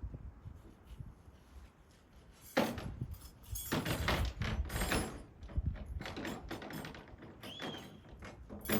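A series of knocks, clatters and rattles of camping gear being handled, starting about two and a half seconds in, busiest a second later, with another knock near the end.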